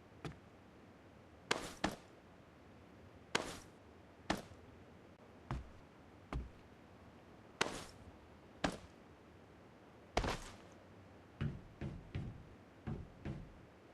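A series of about fifteen sharp knocks and taps at irregular intervals, bunching into quick clusters near the end.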